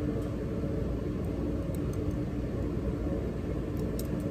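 Steady low mechanical hum and rumble of machinery in the room, with a few faint metallic clicks of stainless steel surgical instruments (needle holders) being handled, a few about a second or two in and a couple more near the end.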